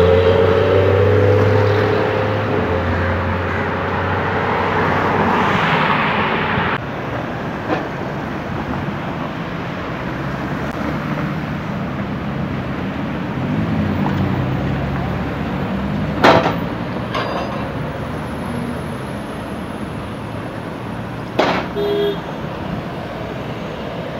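Supercar and road traffic engines. At the start a car's engine note falls as it passes, then a Lamborghini Huracán's V10 engine pulls away at low revs amid traffic, with a few sharp cracks.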